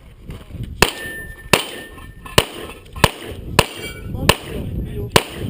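Seven pistol shots from a Glock 35 in .40 S&W, fired one after another at a fairly even pace, a little under a second apart. A brief ringing tone follows the second shot.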